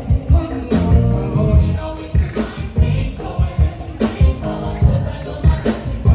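Gospel music: a group of voices singing over a steady, driving beat.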